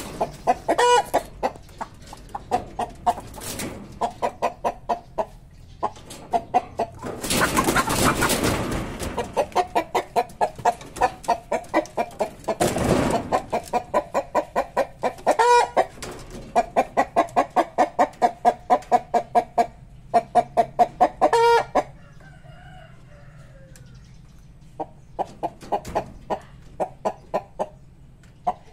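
Chickens pecking at cut dragonfruit on a plate: a rapid run of sharp beak taps, several a second, that pauses briefly near the end. A few short clucks and a couple of bursts of rustling are mixed in.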